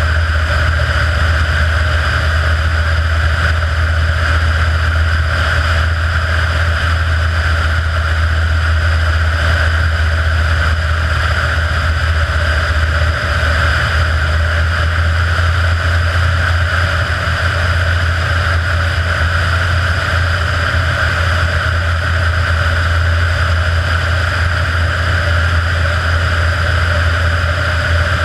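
Kitfox IV floatplane's engine and propeller running steadily in flight, a constant low drone with no change in pitch or level.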